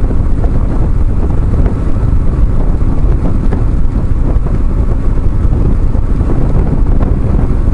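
BMW R1150GS motorcycle at road speed, a steady loud rumble of wind buffeting the microphone over the bike's running noise.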